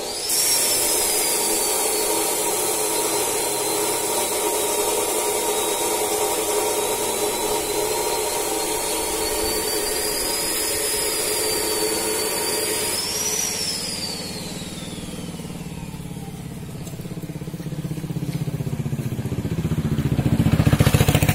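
Motor vehicle engine running with a high whine, which falls in pitch and fades from about thirteen seconds in; then a second engine grows louder with rising pitch toward the end.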